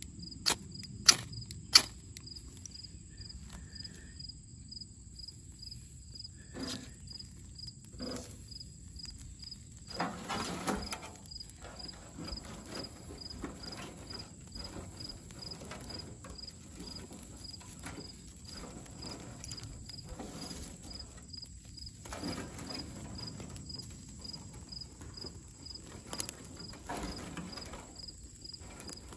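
A ferro rod is scraped sharply three times onto birch bark to throw sparks and light it. Then dry twigs rustle and crackle as they are laid over the small fire. A faint high chirp repeats steadily, about two or three a second, throughout.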